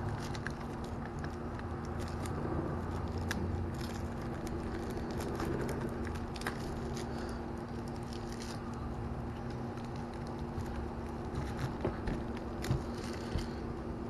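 Protective plastic film being peeled off an RC buggy's body shell: continuous crackling and crinkling, with a few sharper clicks near the end.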